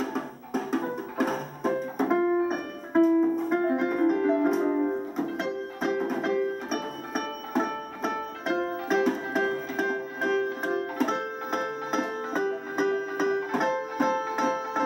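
Electronic keyboard playing a continuous run of separate notes in a plucked, guitar-like voice, with a few light taps from a child's drum kit.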